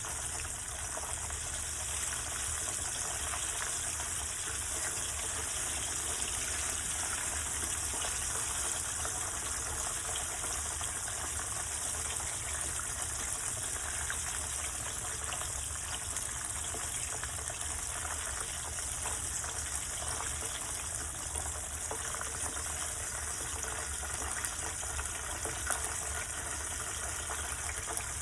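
Chicken wings deep-frying in hot oil: a steady, even sizzle.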